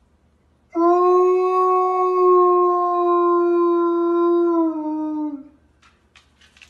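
A dog howling: one long, steady howl of about four and a half seconds that drops in pitch as it ends, followed by a few faint ticks.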